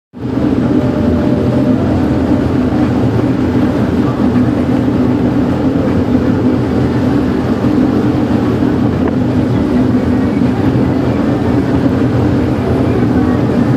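Motorboat engine running steadily: a loud, even drone that holds the same pitch throughout.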